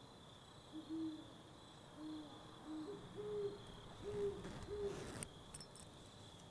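An owl hooting: a faint, uneven series of about six short, low hoots, over the steady high chirring of crickets.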